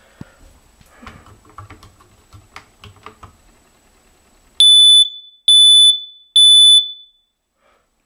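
Ceiling smoke alarm sounding when its test button is pressed: three loud, high-pitched beeps of about half a second each, starting about halfway through and followed by a pause, the temporal-three alarm pattern. Before that, faint tapping of a pencil poking at the test button.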